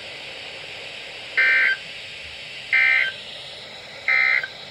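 NOAA Weather Radio SAME end-of-message code: three short bursts of warbling two-tone digital data, each under half a second, about a second and a half apart. It signals weather-alert receivers that the broadcast message is over.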